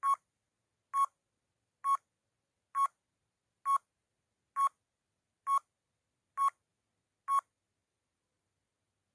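Electronic countdown timer beeping: nine short, clear mid-pitched beeps, one about every second, marking a countdown from nine to one.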